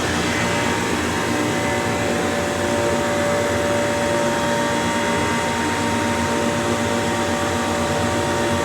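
Hydraulic elevator power unit (pump and motor) running: a steady hum with a couple of steady whining tones in it.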